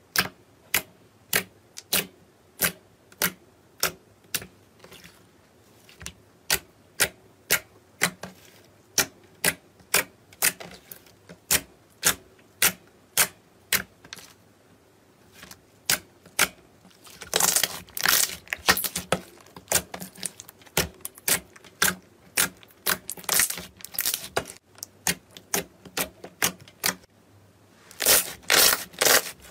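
Clear slime being poked with fingertips, each press giving a sharp wet pop about twice a second, with short gaps. In two stretches, one about halfway through and one near the end, the pops crowd into a dense crackle as the slime is pressed and folded.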